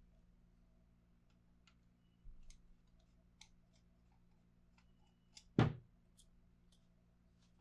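Faint, scattered clicks and ticks of a small screwdriver working the crane screw out of a Smith & Wesson revolver frame, with one louder knock about five and a half seconds in.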